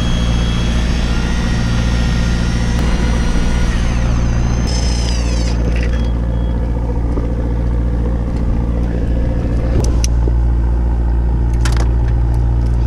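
Steady low drone of the fishing boat's engine. Over the first few seconds a high whine from the spinning reel being cranked slides down in pitch and stops about five seconds in. A few sharp clicks come near the end.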